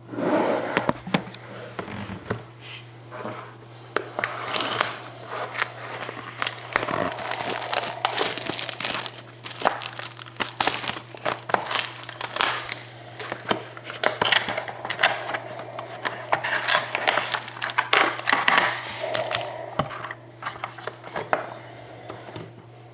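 Plastic wrapping crinkling and tearing in irregular bursts as a sealed box of hockey cards is unwrapped, over a steady low hum.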